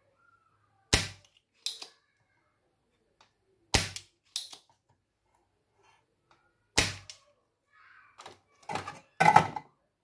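Sharp snaps and knocks from hand work on a motherboard during capacitor replacement: loud single snaps, each followed by a softer one a little over half a second later, then a quick run of knocks near the end.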